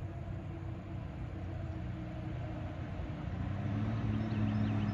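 A motor running with a steady low hum, growing louder about three seconds in.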